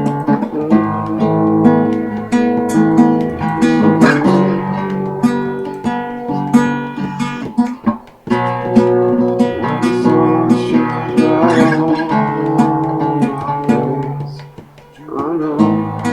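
Acoustic guitar strummed and picked in an instrumental passage of a folk-rock song. The playing drops away briefly about eight seconds in, and again for about a second near the end.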